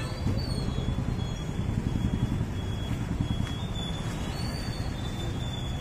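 Steady street traffic noise, a dense low rumble of passing vehicles.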